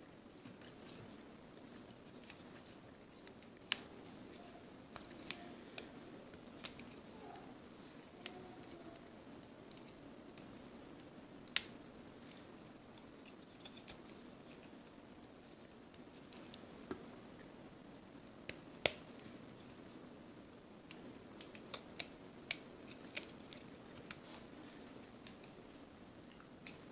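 Scattered sharp clicks and taps of hard plastic Transformers figure parts being folded and handled, a few much louder than the rest, over faint room tone.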